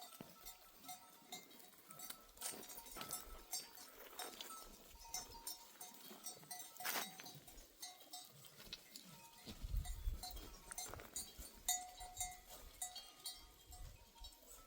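Bells on a flock of sheep and goats clinking and ringing in short, scattered notes, among light clicks and scuffs. A low rumble comes in about ten seconds in.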